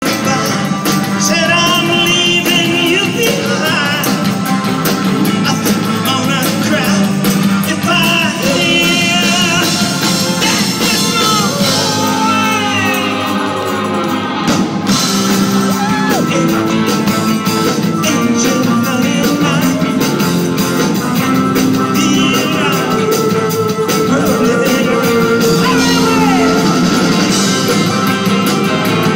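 Live rock band playing with electric guitars and drums while a male lead singer sings into a microphone.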